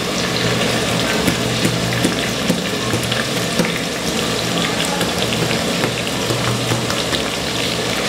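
Chopped carrots and bell peppers frying in oil in an aluminium pot: a steady sizzle with scattered small crackles.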